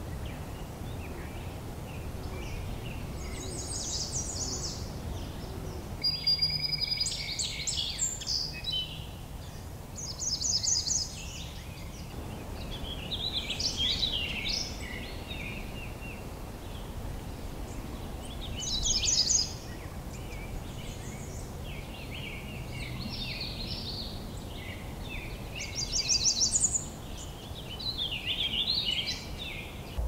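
Songbirds singing: short high phrases every few seconds, some made of quick runs of repeated notes, others warbling lower, over a steady low background noise.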